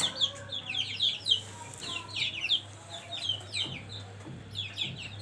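Chicks peeping: a continuous stream of short, high, falling peeps, several a second, from several birds at once.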